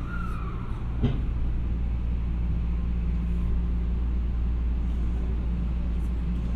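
Steady running noise inside a moving train car: a low hum and rumble, with a brief falling tone at the start and a single sharp click about a second in.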